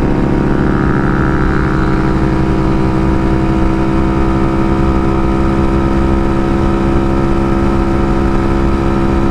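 Honda Monkey's single-cylinder four-stroke engine running at a steady, high speed under way, with wind rush over the microphone.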